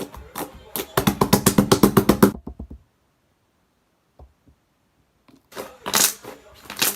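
Slime being squished and pressed: a quick run of sticky clicks and pops, a pause, then more sharp pops near the end.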